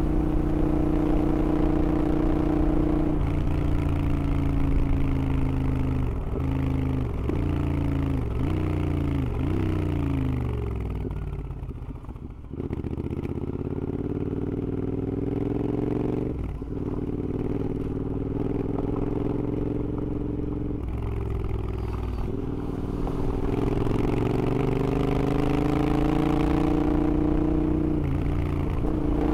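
Royal Enfield Interceptor parallel twin, bored out to 865cc and running high-flow headers and mufflers, under way. The revs fall away over the first twelve seconds or so with a few brief dips. It then pulls hard again, the pitch climbing through several gears with short breaks at each change.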